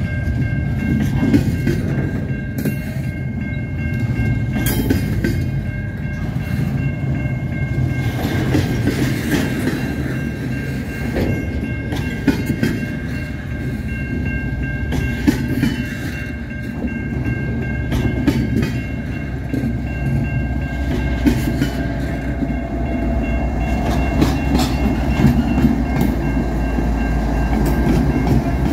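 A long CN freight train's cars rolling past, wheels clicking over the rail joints, with a steady high-pitched ringing of steel wheels on rail. A deeper rumble builds over the last several seconds.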